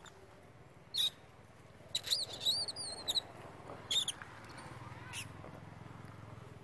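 Macaque giving high-pitched squeaks: a short squeak about a second in, a warbling run of squeaks from about two to three seconds, and another short squeak about four seconds in.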